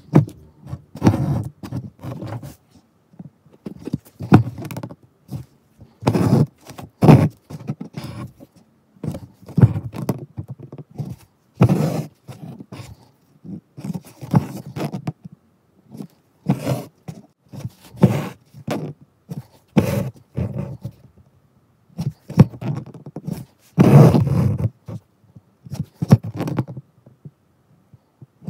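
Needle and thread being pulled through embroidery fabric again and again while working chain stitch: irregular scraping and rustling strokes, often about a second apart, with short quiet pauses between.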